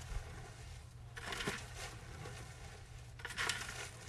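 Mulch rustling and crunching as it is spread around newly planted raspberry canes, in two short bursts about a second in and past three seconds, over a low steady rumble.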